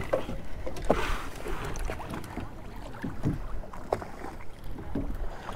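Wind and water noise around a small open boat drifting offshore, a steady low rumble with water moving against the hull, broken by a few light clicks and knocks.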